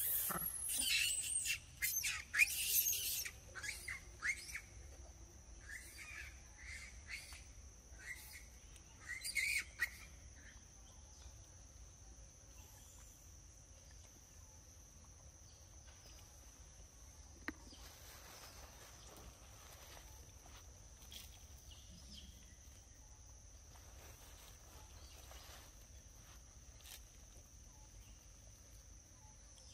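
Birds chirping and whistling loudly in short, quick calls for the first ten seconds or so, over a steady high-pitched insect drone that carries on after the calls fade. A single sharp click sounds a little past halfway.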